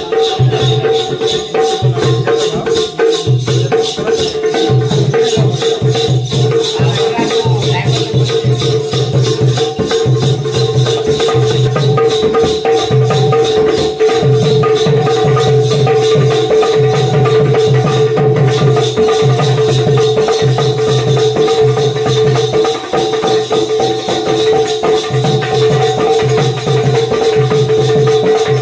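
Jakhadi folk dance music: a steady low drumbeat and a fast jingling, shaker-like rhythm over sustained held tones, running without a break.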